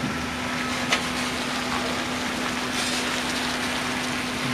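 Diesel engine of a container tractor-trailer running at low speed while it manoeuvres to back onto a weighbridge: a steady hum over even mechanical noise, with a short hiss about three seconds in.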